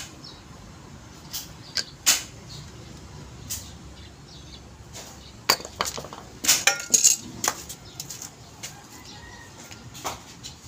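Metal hand tools clinking and being set down on a concrete floor: scattered sharp clinks, with a quick run of them about halfway through.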